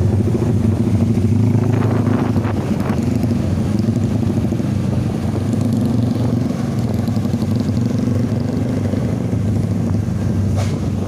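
A vehicle engine running steadily with a low, even drone.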